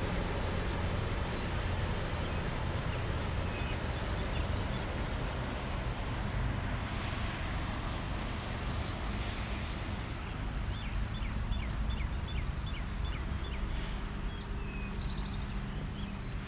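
A motorboat's engine running steadily as the boat passes on the lake. Partway through, a bird gives a quick run of about a dozen high chirps.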